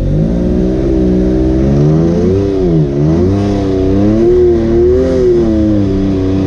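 Side-by-side UTV engine revving up and down as the throttle is feathered crawling over a rock obstacle. Its pitch climbs, dips sharply about halfway, then rises and holds before easing off near the end.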